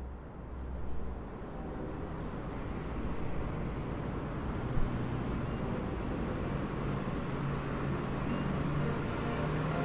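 City traffic ambience fading in: a steady wash of road noise from vehicles, with a low hum that grows in partway through and a single short knock about five seconds in.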